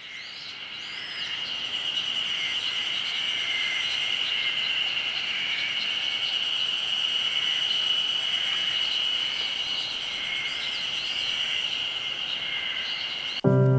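Insects droning steadily at a high pitch, with birds chirping over them, fading in at the start. Music comes in suddenly just before the end.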